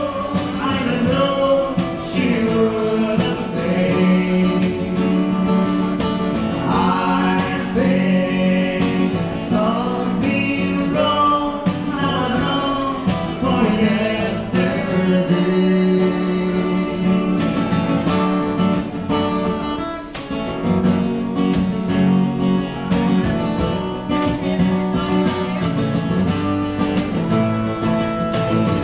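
Live acoustic guitar strummed steadily under a man singing a slow ballad.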